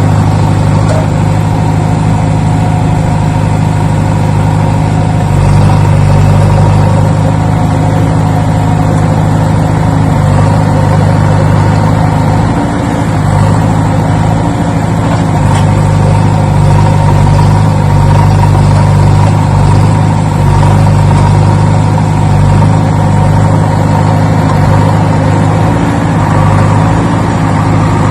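An engine running steadily at an even speed, its pitch holding constant.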